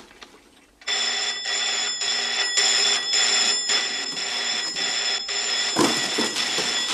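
An electric telephone bell rings loudly and continuously, starting about a second in, with a fast rattling pulse. Near the end a burst of rustling and clattering of papers and debris comes in as the phone is dug out and picked up.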